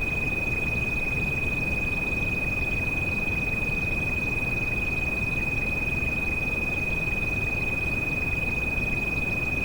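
A steady, high-pitched pure tone, the tinnitus treatment frequency, held without change over a continuous rain hiss that sits mostly in the low end.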